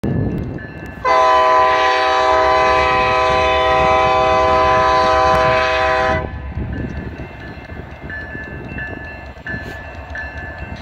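Union Pacific diesel locomotive's air horn sounding one long blast of about five seconds, a chord of several notes, starting about a second in and cutting off sharply, over the low rumble of the approaching train. After the horn stops, a short ringing tone repeats about twice a second over the rumble.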